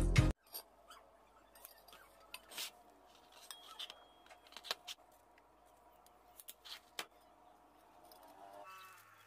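Music cutting off just after the start, then faint scattered clinks and taps of a thick steel plate and a steel pipe being handled and stood against each other.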